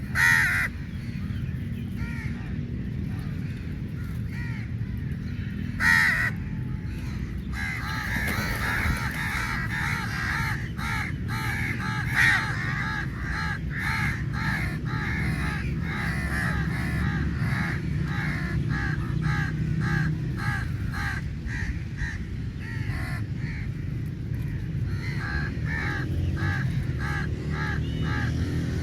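A flock of crows cawing, many calls overlapping, with a few louder close caws near the start, about six seconds in and about twelve seconds in. From about eight seconds on the calling becomes dense and rapid, over a steady low background rumble.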